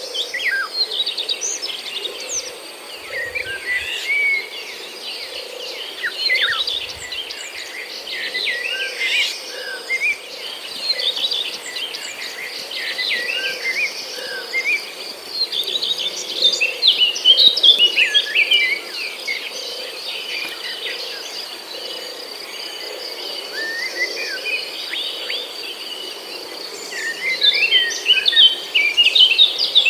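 Many birds chirping and twittering in quick, overlapping calls, over a steady high-pitched insect drone.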